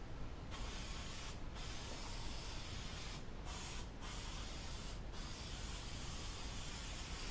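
Aerosol spray adhesive hissing from the can in about five bursts with brief breaks between them, starting about half a second in, laying a light tack coat of glue for foam.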